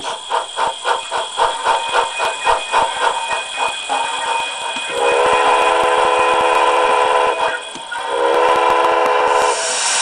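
Locomotive sound sample played through a small model-railway speaker: a run of evenly spaced exhaust beats that fades out, then two long multi-tone whistle blasts, the first about five seconds in and the second about eight seconds in.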